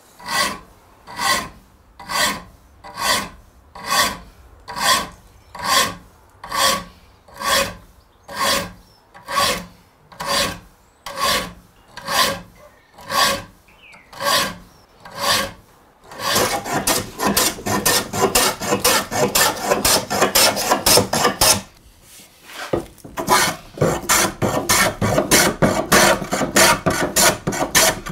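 Saw file rasping across steel saw teeth in slow, even strokes, about one a second, each with a shrill ringing edge: a saw being sharpened. About two-thirds of the way in, the strokes turn quicker and denser, with a brief pause near the end.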